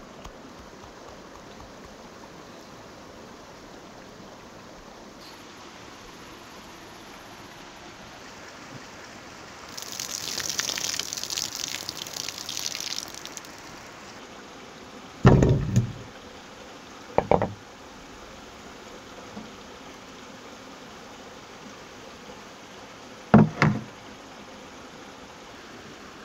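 Water pouring for about three seconds, then three loud, heavy knocks a few seconds apart as peeled potatoes are set down into a wooden bowl, over a steady faint background hiss.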